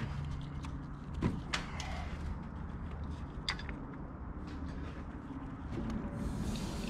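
A few light clicks and taps of hands and parts being worked in a truck's engine bay, over a steady low hum.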